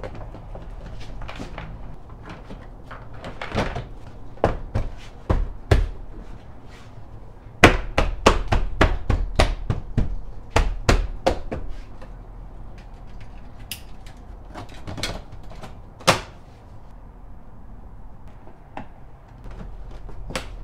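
2016 Toyota Tundra's plastic door trim panel being pressed back onto the door, its clips snapping home: a series of sharp knocks and thumps, scattered at first, then a quick run of them in the middle, with a couple of single knocks later.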